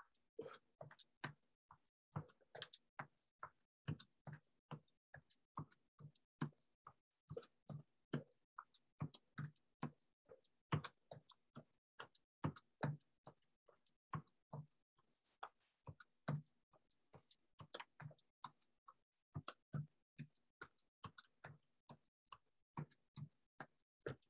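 Faint, regular footfalls of sneakers marching in place, a short thump two or three times a second.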